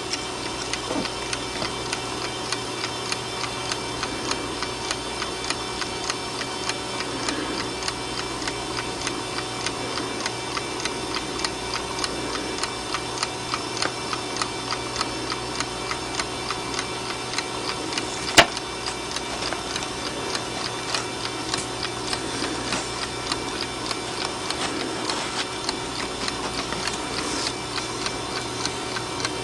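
Westclox wind-up alarm clock ticking steadily, a few ticks a second. A single louder, sharper click comes about two-thirds of the way through.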